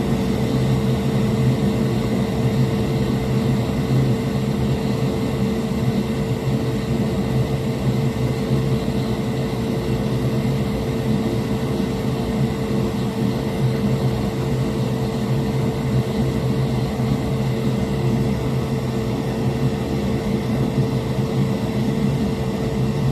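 Steady electric motor hum, like a fan or blower, with a constant tone and no breaks.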